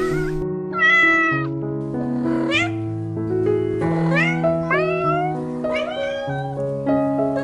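A cat meowing repeatedly, about six short meows, several rising in pitch, over background music with sustained keyboard-like notes.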